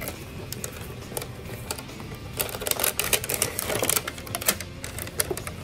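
Packaging being handled: a cardboard box flap opening, then a clear plastic tray crinkling and clicking as it comes out of the box, loudest in the middle. Faint background music runs underneath.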